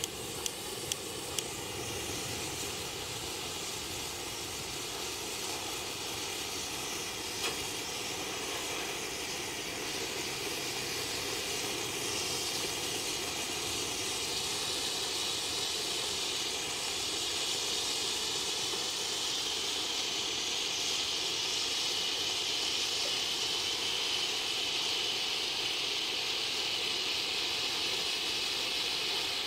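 Five Bengal fuego coloured-flame fireworks burning together with a steady rushing hiss that grows slowly louder. A few sharp snaps come in the first couple of seconds as the fuses catch.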